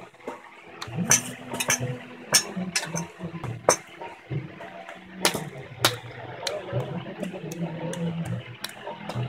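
Food-stall kitchen clatter: irregular sharp clinks and knocks, about one or two a second, over a low murmur.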